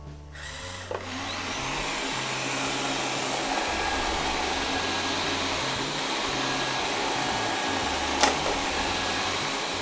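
Viomi V3 robot vacuum's suction fan starting up about a second in after a click, then running steadily at its powerful suction setting, a loud whirring hiss. A single sharp click near the end.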